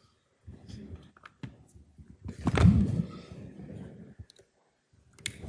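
Clicks, knocks and rustling as a laptop is handled and an Ethernet cable plugged in. The loudest knock and rustle comes about two and a half seconds in.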